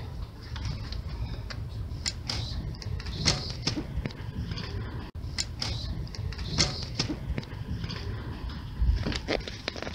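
Scattered clicks and knocks of a cabin door being opened and handled, over a low steady rumble.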